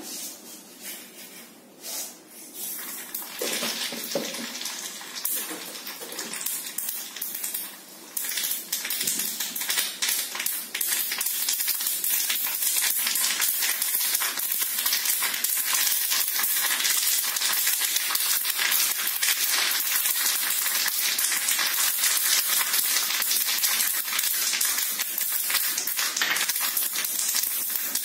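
Mustard seeds popping and sputtering in hot oil in a small pan, the tempering for a sambar. Faint and scattered at first, it becomes a dense, steady crackle from about eight seconds in.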